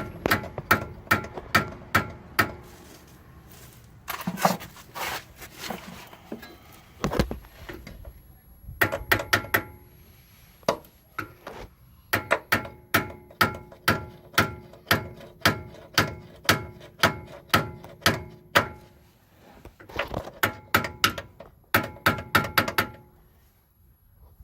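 A small hammer tapping on the inner tie rod's steel lock washer to bend it over against the rack: the washer locks the tie rod in place. The taps come in runs of about two to four a second, each with a short metallic ring, and a few brief pauses between runs.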